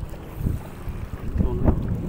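Wind buffeting the microphone at the water's edge, in low rumbling gusts with two stronger bursts, about half a second and a second and a half in, over small waves lapping at the shore.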